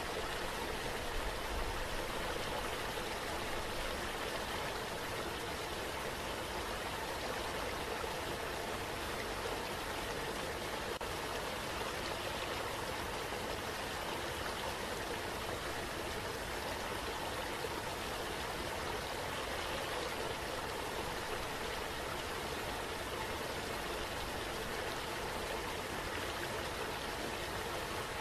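Running water flowing steadily, like a stream.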